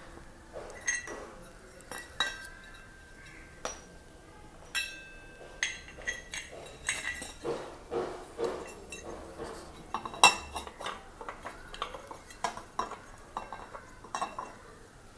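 Irregular metallic clinks and knocks, some with a short ring after them, from the air filter and its metal fittings being handled and set back into the air filter box of a Royal Enfield.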